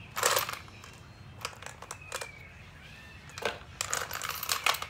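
Small plastic toy gumball machine being handled: a scatter of sharp clicks and rattles from its knob, coin slot and the candy balls inside, the loudest just after the start and several quick ones near the end.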